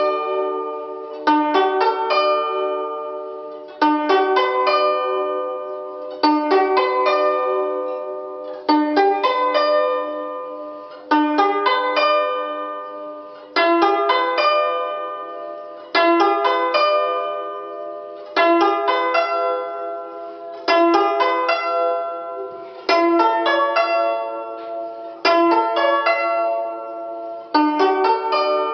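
Guzheng playing a chain of four-note broken chords (琶音 arpeggio practice). Each chord is a quick upward run of plucks left to ring and fade, with a new chord about every two and a half seconds.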